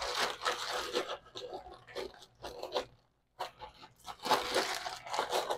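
Brown sugar being scooped and packed into a measuring cup: gritty crunching and scraping strokes, irregular, with a short break about three seconds in.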